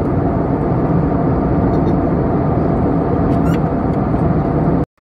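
Steady airliner cabin noise in flight: the engines and the air rushing past the fuselage, heard from inside the passenger cabin. It cuts off suddenly near the end.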